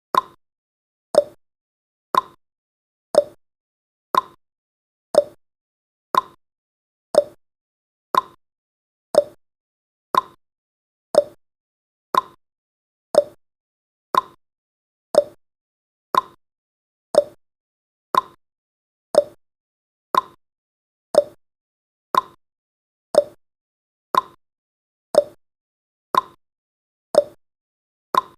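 Countdown timer's tick sound effect: one short, sharp tick every second, steady and evenly spaced.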